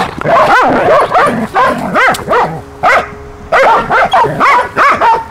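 Dogs play-fighting, barking in quick short barks, about a dozen of them one after another.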